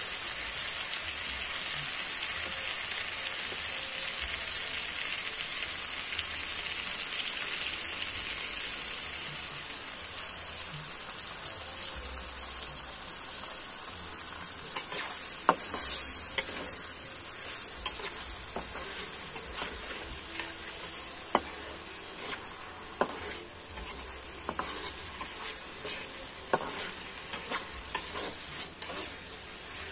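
Chicken and spring onion stir-frying in a hot wok: a steady sizzle that slowly fades, with a brief louder flare about halfway through. In the second half the spatula clicks and scrapes against the wok as the food is stirred.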